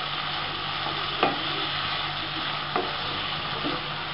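Chicken and potato pieces sizzling and frying in hot oil in a kadai while a wooden spatula stirs them. The spatula knocks sharply against the pan twice, about a second in and near three seconds.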